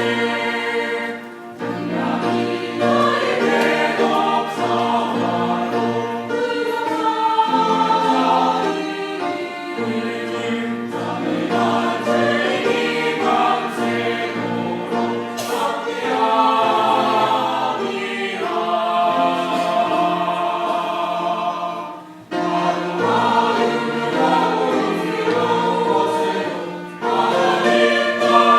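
Church choir singing a hymn in Korean, phrase after phrase, with short breaths between phrases about a second and a half in and again about twenty-two seconds in.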